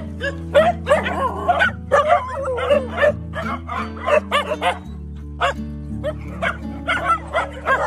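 A pack of village street dogs barking and yipping in quick, overlapping bursts, several at once, crowding together about a second in. Background music with held low notes plays underneath.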